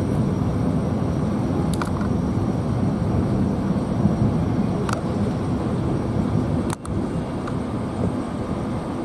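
Southeastern Class 465/466 Networker electric train rolling slowly into the platform: a steady low rumble of wheels and motors, with a few sharp clicks.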